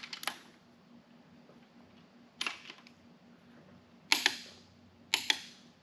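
Click-type torque wrench breaking over at its set torque on connecting-rod bolts: four sharp clicks, most of them quick double clicks.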